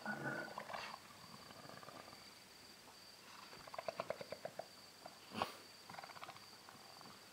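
Wild animal calls at a night waterhole: a short call at the start, then a rapid run of about eight pitched pulses in the middle and a few more a little later, over a steady high cricket trill. A single sharp click about five seconds in.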